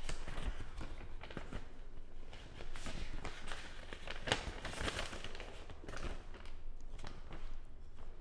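Paper rustling and crinkling in irregular crackles as a letter is handled and unfolded.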